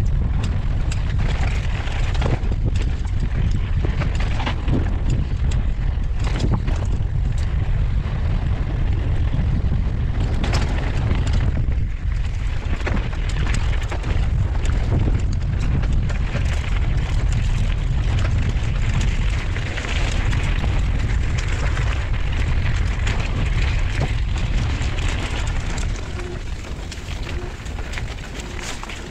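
Wind rumbling on the microphone of a mountain bike descending fast, with tyres crunching over gravel and rocks and many short rattles and knocks from the bike. It gets quieter near the end.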